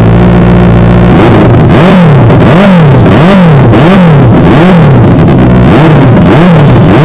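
Benelli 600i inline-four motorcycle engine with a loud aftermarket exhaust, idling, then revved in about seven quick throttle blips, each rising and falling, before it drops back to idle. The exhaust is insanely loud.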